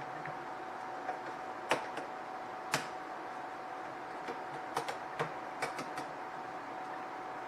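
Scattered sharp clicks and taps of small parts and hand tools being handled, about half a dozen irregularly spaced, over a steady high-pitched hum.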